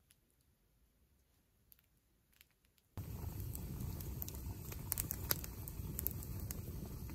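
Very faint crackling for about three seconds, then a close wood fire burning on a raised log platform: a steady low rush with sharp crackles and pops of burning wood.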